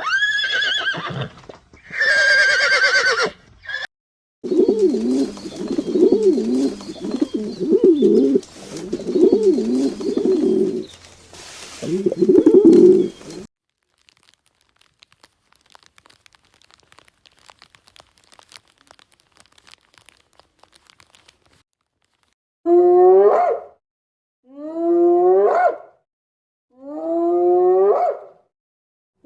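Animal calls in turn. A couple of short, high calls, then a run of low, wavering calls repeated about once a second for some nine seconds. After a faint quiet stretch come four falling calls about two seconds apart near the end.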